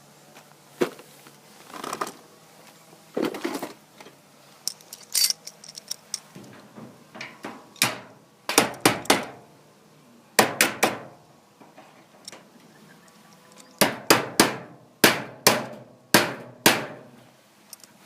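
Rusty brass padlock being struck repeatedly to jolt its seized shackle free while the picked core is held turned: sharp metallic knocks, mostly in quick bursts of two or three, about a dozen times.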